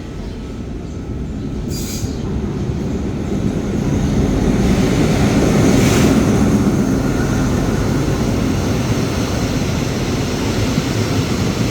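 Diesel passenger train pulling into the station: a low rumble of engine and wheels that grows louder over the first five or six seconds as it draws close, then runs on steadily.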